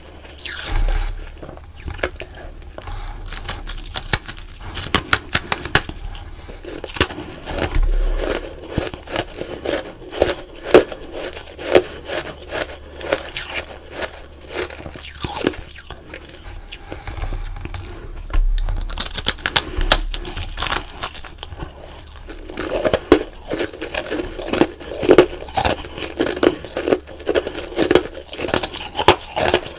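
Packed powdery ice crunching as it is chewed close to the microphone: a dense run of sharp crisp crunches, heavier in two spells, about a third of the way in and again near the end.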